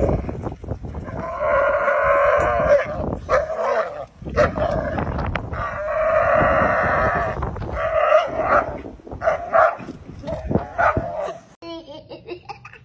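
A dog tugging on a rope hung from a tree gives long, goat-like screaming cries: two long drawn-out wails, then several shorter ones.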